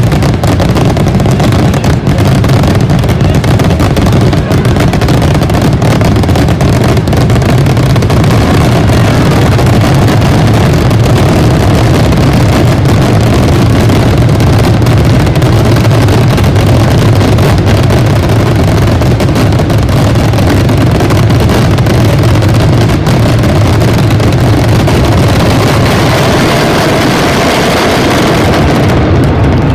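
Massed barrage of firework rockets (voladores) launched and bursting by the thousand, merging into one loud, unbroken rumble of bangs and cracks.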